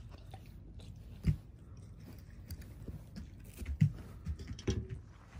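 A pet biting and chewing at a pair of eyeglasses: irregular small crunches and clicks, with louder knocks about a second in and again near four seconds.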